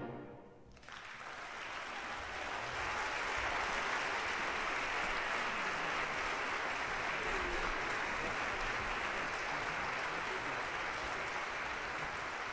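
Audience applause, breaking out about a second in after a brief hush and settling into steady clapping.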